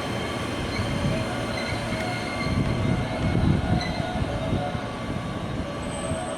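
Electric commuter train moving along the platform: a steady rumble of wheels on rail with thin squealing tones over it, loudest about halfway through.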